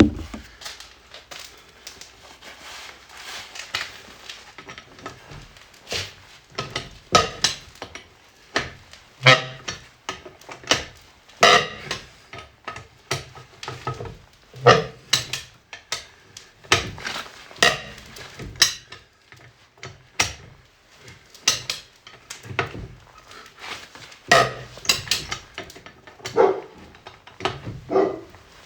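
Irregular sharp metallic clanks and knocks, as of a wrench tightening a car's wheel nuts during a tyre change, with a dog barking now and then, more toward the end.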